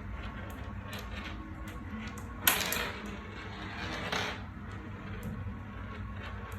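Marbles clicking and rolling along a marble run track, with a loud clatter about two and a half seconds in and a smaller one about four seconds in, over a steady low hum.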